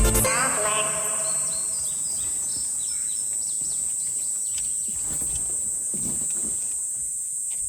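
Outdoor summer forest ambience: a steady high-pitched insect drone with scattered short bird chirps.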